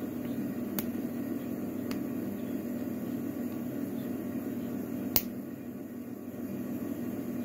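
A few small sharp clicks of metal tools and lock parts being worked while taking apart an Evva DPS lock cylinder, the loudest about five seconds in, over a steady low hum.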